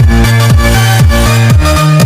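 Loud electronic dance music with a steady beat, a deep kick drum about twice a second under a bass line and synth parts.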